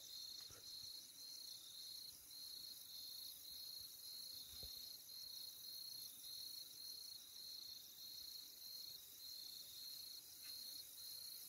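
Crickets chirping: a faint, continuous high trill that swells and dips about every two-thirds of a second.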